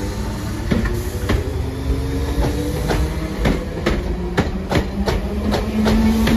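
Class 313 electric multiple unit running into the platform. Its wheels click over the rail joints, the clicks coming faster as the coaches pass close, over a low rumble and a low whine that rises slowly in pitch.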